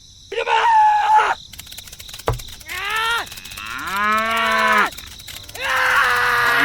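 Cattle mooing: four drawn-out calls with sliding pitch, with a single sharp knock about two seconds in.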